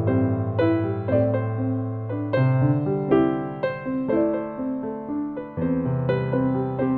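Slow, gentle piano music: sustained chords with a new note struck about every half second.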